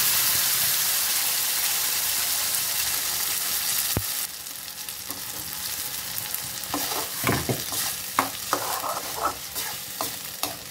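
Ground coconut chutney poured into hot coconut oil with mustard seeds, curry leaves and dried red chillies in a metal kadai, sizzling in a loud hiss that fades and drops away about four seconds in. From about six seconds in, a spoon scrapes and clicks against the pan as the chutney is stirred.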